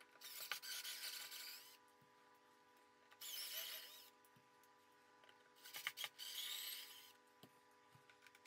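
Cordless drill-driver backing screws out of the subwoofer's rear amplifier panel in three short runs, each a wavering whine: the first about a second and a half, the second under a second, the third about a second and a half, with a few clicks among them.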